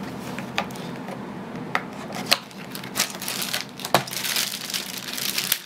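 Small objects handled on a tabletop: a scatter of sharp clicks and knocks, then a crinkling rustle for the last second or so.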